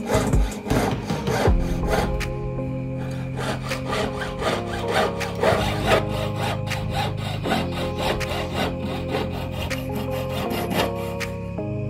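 Jeweller's saw blade cutting a piece of silver sheet held against a wooden bench pin, in quick repeated back-and-forth strokes. Background music plays underneath.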